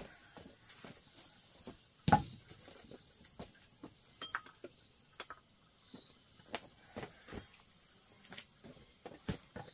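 Insects chirring in one steady high tone that briefly stops about halfway through, over scattered light knocks from things being handled; a loud thump about two seconds in is the loudest sound.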